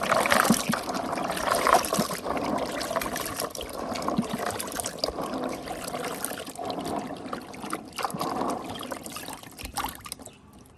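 Fresh palm nuts being washed by hand in water: water splashing and trickling, with many small clicks of the nuts knocking together. It dies down near the end.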